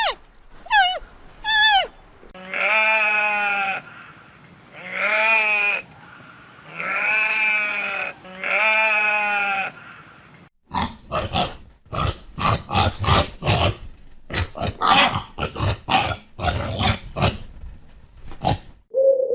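Livestock bleating: four long, even bleats, each a little over a second long. They are followed, about eleven seconds in, by a rapid run of short, rough grunting calls.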